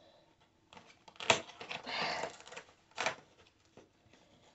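Cardboard advent calendar door and small cardboard box being pulled open and handled: a few sharp clicks and snaps of cardboard, with a scraping rustle around the middle.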